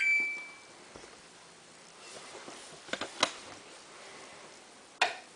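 A Samsung washing machine's electronic beep as it is switched on into service mode, fading out right at the start, then a few sharp clicks about three seconds in and another near the end.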